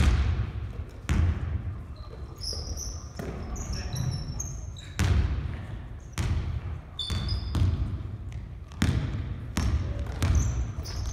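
Basketball bouncing on a wooden gymnasium floor, about one echoing thud a second at an irregular pace, with short high squeaks of sneakers on the floor.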